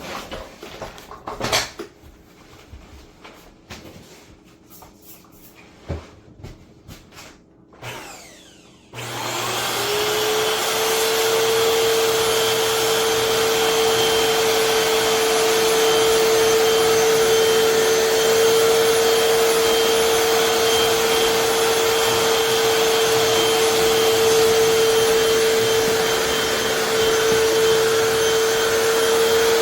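A few clicks and knocks, then about nine seconds in a Hoover FloorMate Deluxe hard-floor cleaner switches on. Its motor spins up with a briefly rising hum and then runs steadily and loudly.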